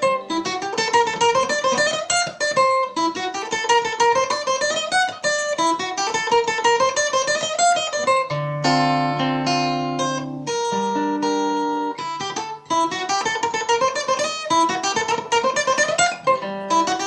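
Acoustic guitar playing a fast passage over and over: quick rising scale runs, with two held chords about halfway through. The passage is played at a tempo the guitarist himself judges too fast, so the notes start to stumble and come out unclean.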